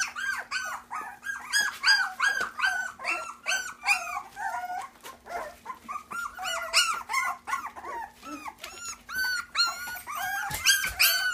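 A litter of three-week-old Goldendoodle puppies whining, squealing and yipping together, many short high calls overlapping several times a second.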